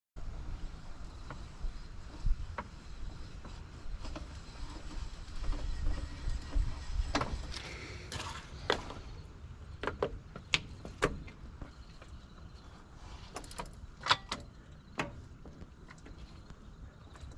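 A low steady rumble with scattered sharp clicks and knocks, a dozen or so, spread unevenly through the stretch.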